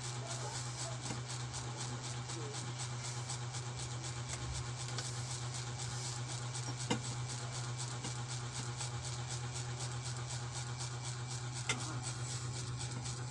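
Two sharp cracks, about seven and twelve seconds in, typical of joints cracking during a back manipulation, over a steady low hum with a fast, even flutter.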